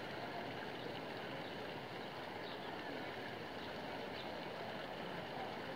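Steady wash of water in a shallow stream, stirred by a dog wading through it.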